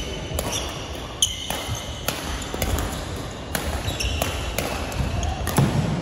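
Badminton rally in a large echoing sports hall: sharp racket-on-shuttlecock hits and short, high squeaks of court shoes on the wooden floor, several times over.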